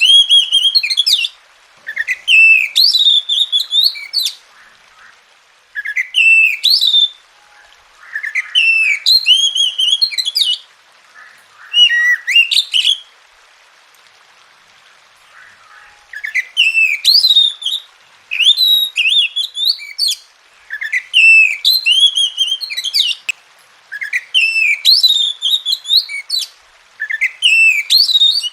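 Oriental magpie-robin (kacer) singing in repeated loud phrases of quick, rising and falling whistled notes, each phrase lasting one to two seconds and followed by a short pause. There is a longer break of about three seconds in the middle.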